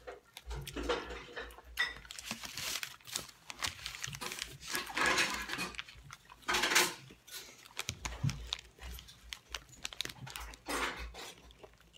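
Close-up chewing and mouth noises of people eating fast, with scattered clicks and rustles from handling the food.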